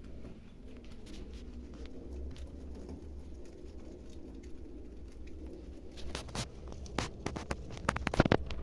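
Dry hay in a rabbit hutch rustling and crackling: light patters at first, then a run of loud, sharp crackles over the last couple of seconds.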